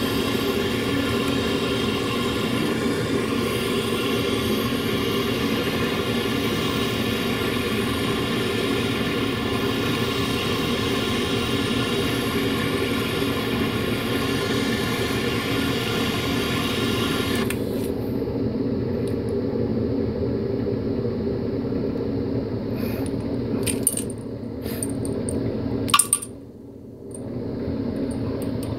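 Butane torch flame hissing steadily. About two-thirds of the way in the hiss loses its high edge, and near the end a few sharp clicks break in.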